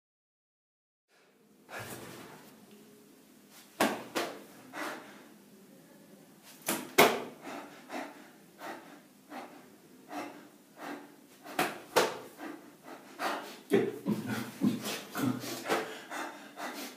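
A man panting hard in a small enclosed space, sharp noisy breaths at uneven intervals, some with a voiced catch. It starts about a second and a half in, after dead silence.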